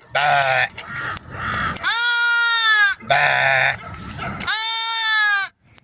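Sheep bleating: about four calls, two of them long and drawn out, each sliding slightly down in pitch.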